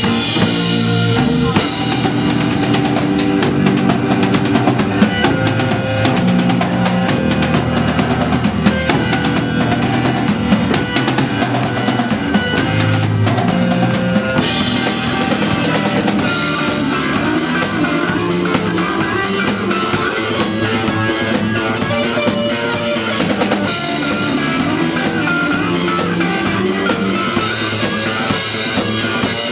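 Rock band playing live: drum kit with bass drum and snare over guitars and bass, with no singing, and the arrangement changes about halfway through.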